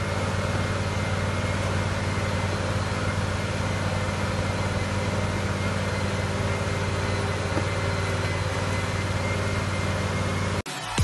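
A machine running steadily with a low hum and a hiss, cutting off abruptly near the end.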